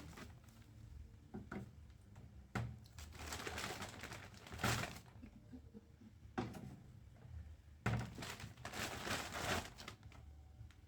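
Groceries being handled and put into a fridge: a few sharp knocks of containers set down on the shelves, with rustling of packaging in between.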